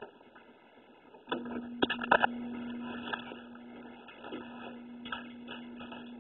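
An electric appliance switching on about a second in: a few sharp clicks, then a steady motor hum with a hiss that runs on.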